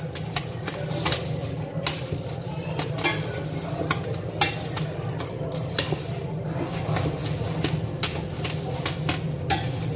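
Wooden slotted spatula stirring freshly popped popcorn in a large stainless steel pot: a dry rustling churn of popcorn with irregular sharp clicks and knocks, over a steady low hum.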